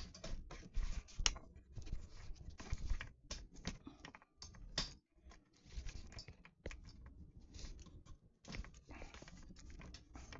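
Irregular clicks, taps and knocks close to the microphone: the phone and its stand being handled and adjusted.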